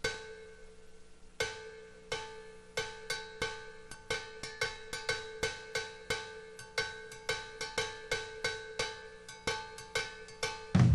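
Song intro on a lone pitched metallic percussion instrument: the same ringing note struck over and over, a few widely spaced hits at first, then about two to three a second in an uneven rhythm.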